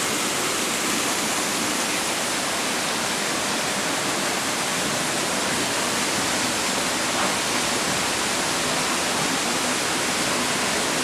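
Steady rush of falling water from the creek that powers the sawmill.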